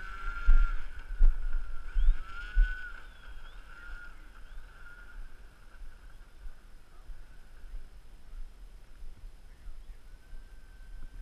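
RC model airplane's motor and propeller whining as the plane takes off and flies away. The pitch dips and rises with the throttle in the first few seconds, then the sound fades with distance and comes back as a faint steady whine near the end. Low thumps, likely wind on the microphone, come in the first few seconds.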